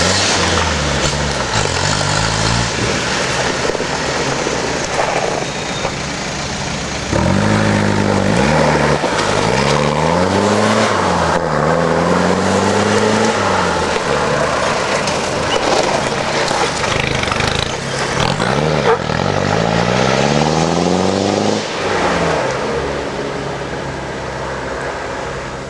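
Off-road 4x4 engine revving up and down over and over, its pitch rising and falling. It gets louder about seven seconds in and eases off near the end.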